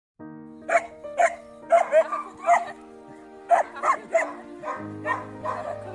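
German Shorthaired Pointer puppy barking: about ten short, high barks in two quick runs with a brief pause between them, over steady background music.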